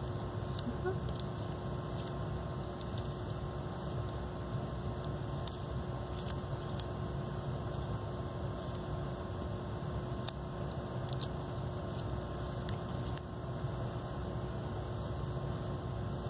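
Room tone: a steady low hum with a faint steady whine above it, and a few faint scattered ticks.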